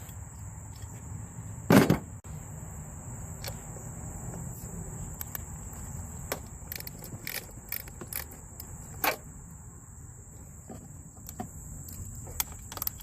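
Scattered clicks and knocks of hands and parts being handled in a car's engine bay during battery removal, with one louder knock about two seconds in, over a steady high-pitched drone.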